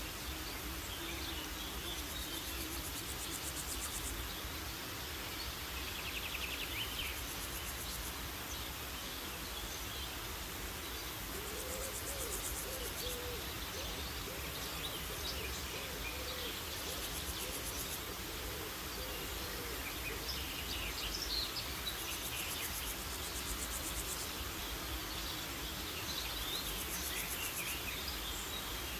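Woodland ambience: scattered bird chirps and calls over a low steady rumble, with bursts of high, fast insect trilling every few seconds. A low repeated hooting call comes in about twelve seconds in and lasts several seconds.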